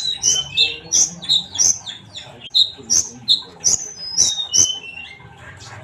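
Sunbird (konin) singing a fast run of sharp, high chirps mixed with short whistled slides, about three notes a second, breaking off shortly before the end.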